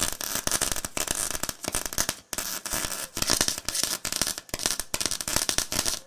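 Crackling, sputtering sound effect: a dense run of sharp clicks and hiss with a few short breaks, stopping abruptly at the end.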